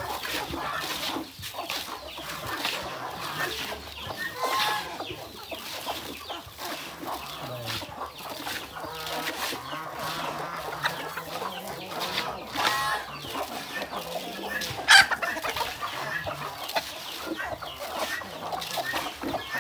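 Hens and roosters clucking around a feed basin, over the wet rustling and scraping of hands mixing chopped green feed with paddy rice in a metal basin. One sharp, loud sound stands out about fifteen seconds in.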